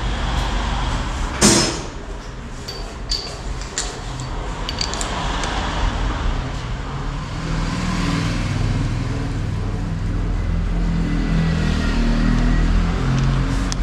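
Motorcycle service-workshop noise: one loud metallic knock about a second and a half in and several lighter tool clicks, over a steady hum of vehicle engines that grows louder in the second half.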